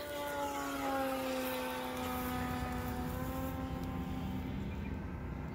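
Radio-controlled Durafly Me 163 model plane's electric motor in flight: a whine made of several tones that drops in pitch over the first two seconds as the plane passes, then holds steady.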